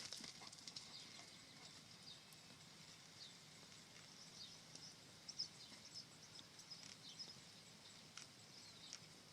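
Near silence: faint open-air ambience with scattered soft, high, brief ticks or chirps.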